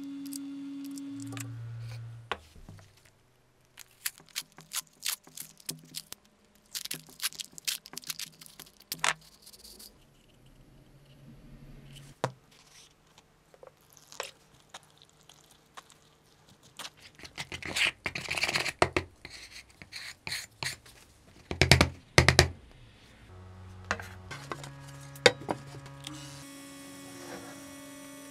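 Irregular scrapes, scratches and small taps of hand work, with a louder run of scraping about two-thirds of the way through and a few sharp knocks soon after.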